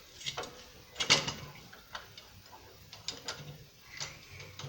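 Scattered metallic clanks and knocks of heavy steel three-point hitch parts being shifted and worked onto their mounting pin by hand, about six separate knocks with the loudest about a second in.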